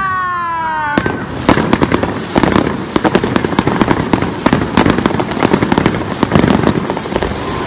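Aerial fireworks going off: a string of sharp bangs over a dense, continuous crackle from the bursting gold shells. A falling, drawn-out tone sounds in the first second.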